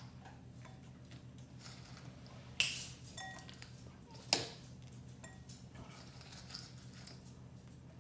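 Two sharp clinks of glass dishware, about two seconds apart, the second louder, over a low steady hum.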